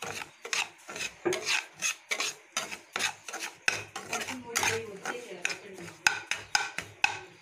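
A spoon stirring and scraping semolina around a metal kadai as it roasts in ghee, in quick repeated strokes about two to three a second.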